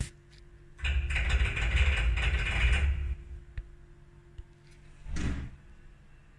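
Haas CNC machine's Z axis making a loud, gritty grinding rattle for about two seconds, then again briefly near the end: the abnormal Z-axis noise the owner is trying to track down.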